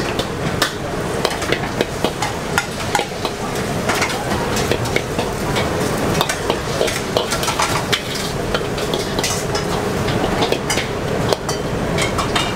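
Metal spatula scraping and clanking against a large steel wok as noodles are stir-fried, with steady frying sizzle underneath.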